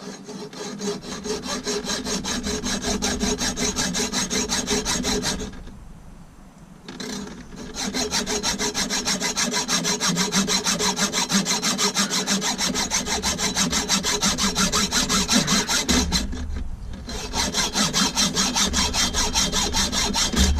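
Hand saw cutting through the metal of a stock automatic shift handle in quick, even back-and-forth strokes, stopping briefly twice.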